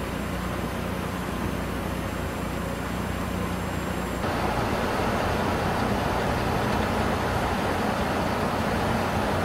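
Steady outdoor background noise: a low hum under a hiss, which changes abruptly about four seconds in to a louder, fuller hiss.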